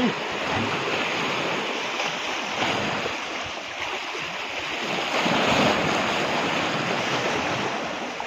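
Sea waves washing over a rocky shoreline, a steady rush that swells about five seconds in.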